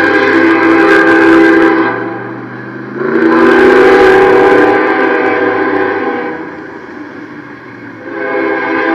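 Locomotive air horn sounding a chord of several steady tones in long, loud blasts, with the level dipping about two seconds in and again from about six seconds to about eight seconds in before the next blast: a train blowing for a street grade crossing.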